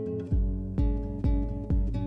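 Background music with a strummed acoustic guitar; a deep, steady beat comes in about a third of a second in, a little over two beats a second.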